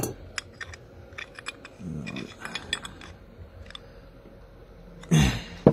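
Irregular light metallic clicks and taps of a tool working against a motorcycle's rear brake caliper as its pistons are levered back into their bores. A brief voice sound about two seconds in and a louder one near the end.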